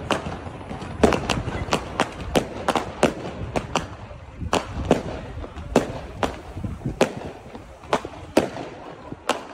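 Fireworks bursting overhead in a quick, irregular string of sharp bangs and crackles, a few a second, over a low rumble. The bangs come thickest in the first half and thin out after.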